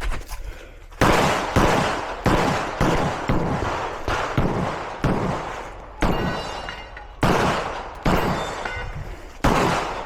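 A string of 9mm pistol shots from a Glock 34 Gen5 fired in quick succession, starting about a second in, with sharp cracks roughly half a second to a second apart, each followed by a short echoing tail.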